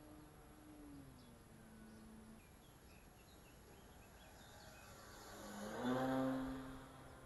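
Electric E-flite Beaver 25e RC plane's 42-size brushless motor and 13x6.5 propeller humming as it flies past low overhead. The hum is faint at first, swells to a peak about six seconds in, then fades.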